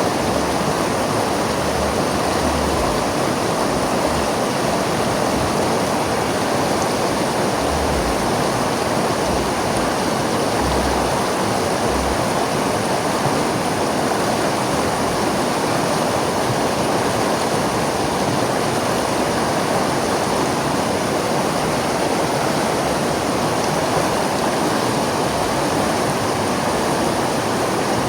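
River water flowing, a steady continuous rush.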